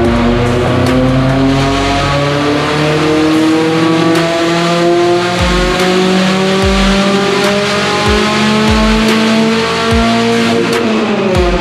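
Turbocharged Subaru flat-four engine on a chassis dyno at full throttle, its pitch climbing steadily through a long pull in one gear, then dropping sharply as the throttle closes near the end.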